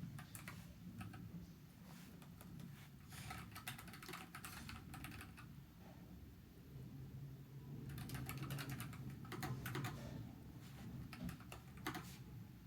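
Typing on a NuPhy Air75 low-profile mechanical keyboard with red linear switches: runs of quick keystroke clicks in several spurts with short pauses between, busiest around three to five seconds in and again around eight to ten seconds.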